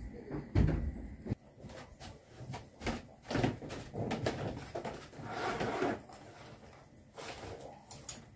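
Irregular knocks, clicks and scraping of handling and moving about, with a heavy low thump about half a second in and a longer rustling scrape around five seconds in.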